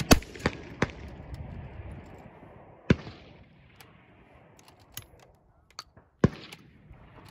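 A Winchester Model 37 single-shot shotgun fires a load of bird shot just after the start, and the blast rolls away over about two seconds. Two more sharp cracks follow, near the middle and near the end.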